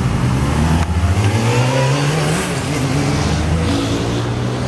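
Sport motorcycle engine accelerating away. Its note climbs, drops about two seconds in as it changes gear, then holds.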